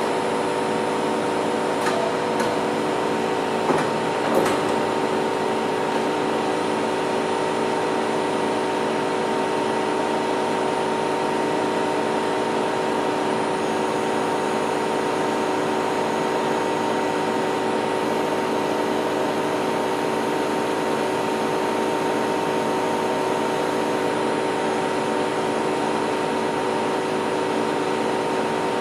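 Novar CNC bed milling machine running, a steady hum made of several fixed tones, with a few light knocks in the first few seconds.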